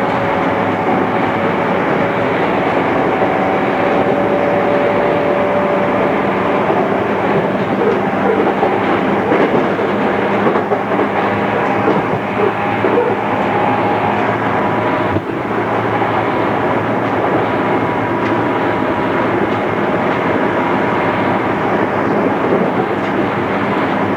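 JR East 211-series electric train running at speed, heard from inside the car: steady wheel-and-rail noise with faint held tones from the drive and a brief dip about fifteen seconds in. The recording is on cassette tape, so it sounds dull at the top end.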